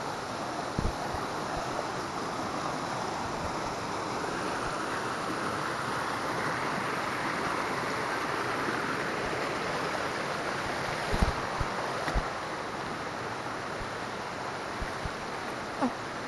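Steady rush of flowing water from a mountain stream near a waterfall, with a few brief low thumps, twice close together in the middle.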